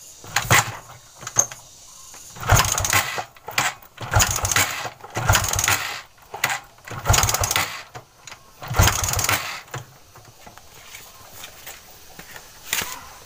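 Suzuki Shogun 125 kick-started again and again, the engine turning over on each of about six kicks without starting. The kicks stop about nine seconds in.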